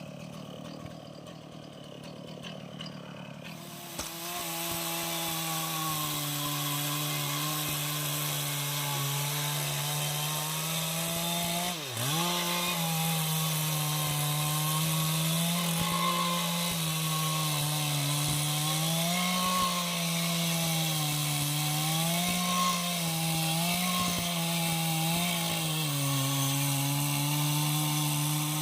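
Chainsaw runs low for the first few seconds, then opens up to high revs about four seconds in, cutting jackfruit wood, its pitch wavering with the load. Around the middle the revs dip sharply and recover.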